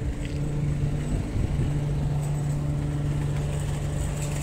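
Flatbed tow truck's engine idling, a steady low hum.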